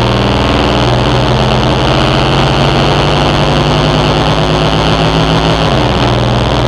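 Two-oscillator joystick noise synth putting out a loud, harsh low drone with a dense buzzing rattle. One of its pitches slides down slightly near the end.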